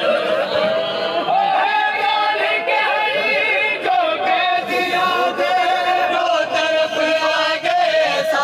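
Men's voices chanting a noha, a Shia mourning lament, many voices at once without instruments.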